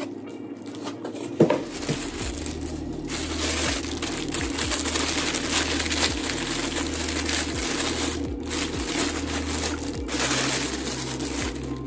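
Plastic wrapping crinkling and rustling as products are unwrapped by hand, with a steady low hum and soft regular low thuds underneath.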